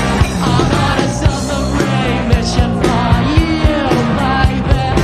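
Punk rock band playing loud, with a fast, steady drum beat under bass and guitar, and a male singer's vocal over it.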